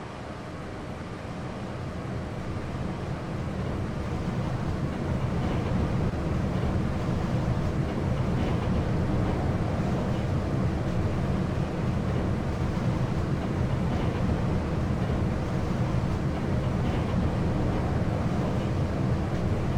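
Service lift car travelling in its shaft: a steady low rumble with a rush of air that builds over the first few seconds, then holds level.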